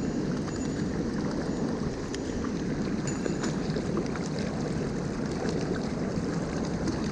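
Mountain stream water rushing over rocks, a steady, even noise.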